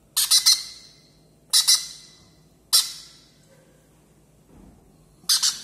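Baby pineapple conure chick squawking while being syringe-fed formula: the feeding begging call. Four short bursts of high squawks, some of two or three quick cries in a row.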